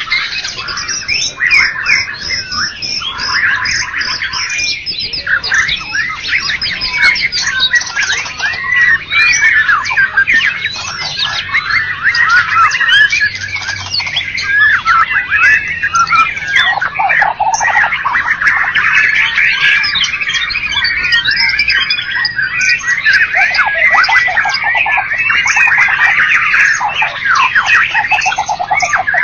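White-rumped shama (murai batu) singing without pause: a dense, rapid run of varied whistled notes and quick sweeps, now and then dropping to lower phrases.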